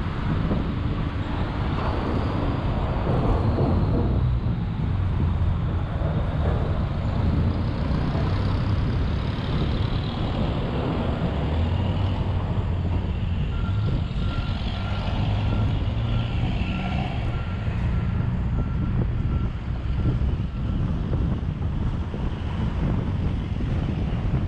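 Steady street traffic with heavy vehicles running. About halfway through, an electronic beeper starts sounding short, evenly spaced beeps at one pitch, roughly one to two a second, for about seven seconds.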